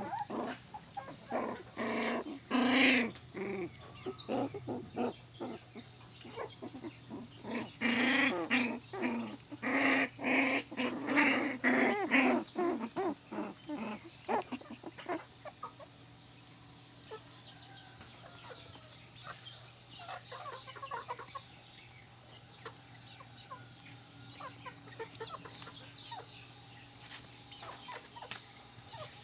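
Puppies yelping and barking in quick, repeated bursts, loudest in the first half and fainter and more scattered after about fifteen seconds.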